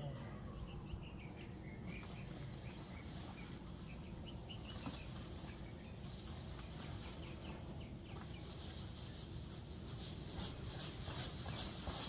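Dry leaves rustling and crackling as they are tipped from a lawn mower's bagger bin into a paper leaf bag, rising in the last few seconds. A bird chirps in quick repeated notes over the first few seconds.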